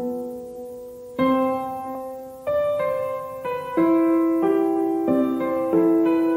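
Background piano music: slow chords, a new one struck every second or so, each ringing and fading.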